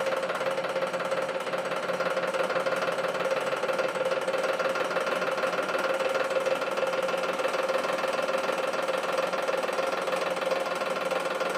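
Hydraulic press pump running steadily under load as the ram slowly crushes a thick steel tube: a loud, even machine hum of constant pitch, with no cracks or bangs from the metal.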